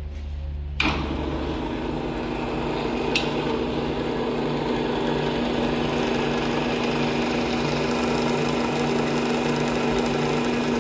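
Ammco 4100 Safe-Turn brake lathe switched on with a click about a second in, its electric motor then running steadily with a constant hum. A brief tick about three seconds in.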